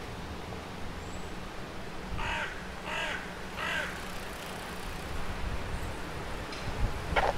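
A crow cawing three times, a little over two seconds in and under a second apart, over the steady hum of city traffic. Near the end come a couple of low knocks and a short sharp sound, the loudest moment.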